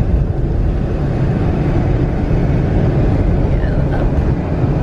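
Steady road and wind noise inside a moving car: an even low rumble with no breaks.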